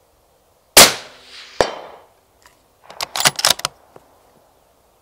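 Mauser M18 6.5 Creedmoor rifle with a sound moderator firing one shot, its report dying away over about a second, with a second sharp crack just after. About three seconds in the bolt is worked, a quick run of metallic clicks.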